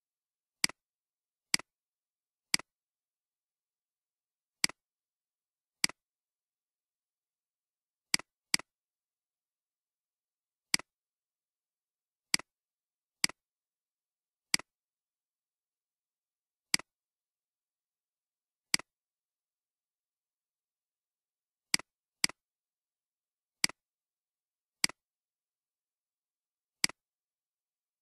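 Computer mouse clicking: single sharp clicks at irregular intervals of about one to two seconds, with no other sound between them.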